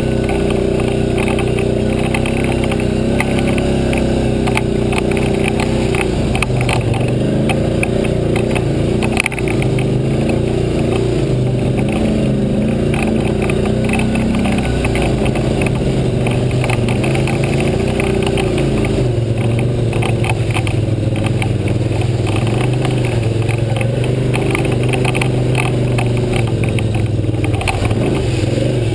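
ATV engine running as the machine is ridden over a bumpy dirt trail, its pitch rising and falling with the throttle, with a constant rattle from the bumps.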